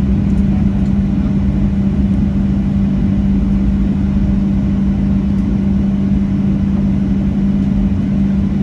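Boeing 737-700 cabin noise from a forward window seat: its CFM56-7B turbofans give a steady hum with one strong low tone over an even rumble. The level holds steady, with no spool-up or change.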